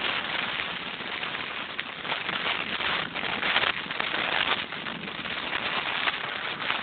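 Wind rushing over the microphone of a camera on a moving bicycle, together with tyre noise on the asphalt, swelling and easing in gusts, with scattered small clicks and rattles.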